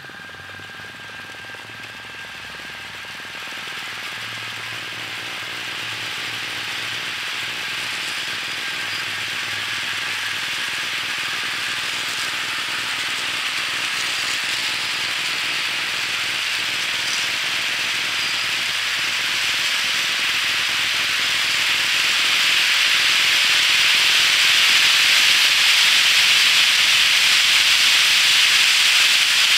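Long HO scale model train of coal gondolas running around a spiral of track: a steady rushing rattle of many small wheels on the rails, growing steadily louder as the train speeds up.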